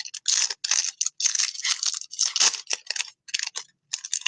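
A trading card pack's wrapper being torn open and crinkled by hand: irregular crackling rustles with short pauses.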